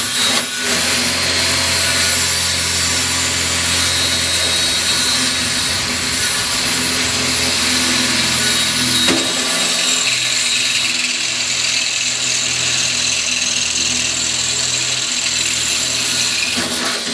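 Cordless drill running under load, boring into the sheet metal of a 20 mm ammo can, almost without a break and with a shift in the motor's note about halfway through.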